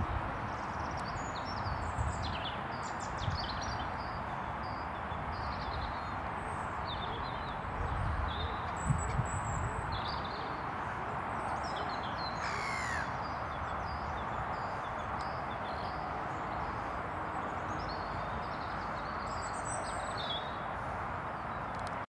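Several wild birds calling and chirping in short high notes, one sharper call with a falling pitch about halfway through, over a steady rushing background noise. A few low thumps early on and around the eighth and ninth seconds.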